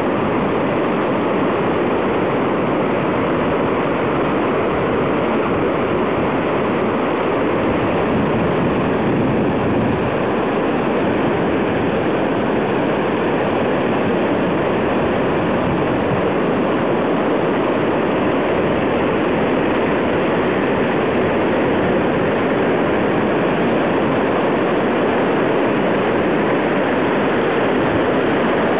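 Floodwaters of the South Esk River rushing through a rocky gorge as whitewater: a loud, steady roar that does not let up.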